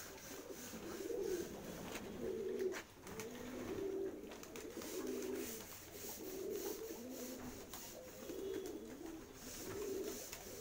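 Domestic pigeons cooing over and over, several birds overlapping, with low coos about once a second.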